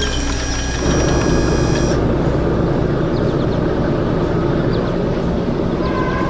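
A heavy machine's engine rumbling steadily, like an excavator running or drilling, with held musical tones fading out about two seconds in and a falling tone near the end.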